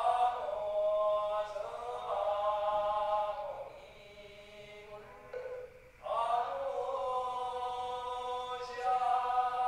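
Buddhist chanting in long held notes: one phrase of about three and a half seconds, a pause of about two seconds, then another phrase.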